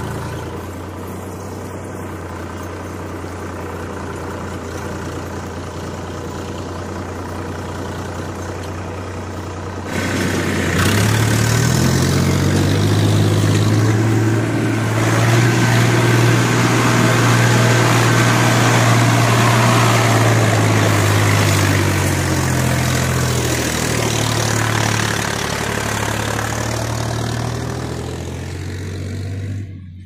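Massey Ferguson tractor's diesel engine running steadily at low revs, then about ten seconds in it revs up sharply and runs hard for roughly ten seconds before the revs ease back down.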